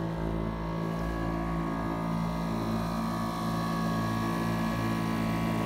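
Small motorboat's engine running steadily at a constant speed, a continuous hum under the wash of the sea.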